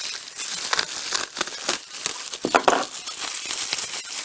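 Packaging crinkling and rustling as items are handled and unwrapped, a dense run of irregular crackles with a louder burst about two and a half seconds in.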